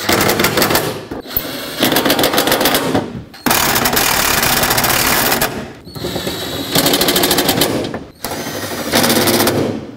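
Cordless impact gun hammering bolts down in five separate bursts of rapid rattling with short pauses between, the longest burst near the middle. These are the bolts holding the panel under the cowl being snugged up one after another.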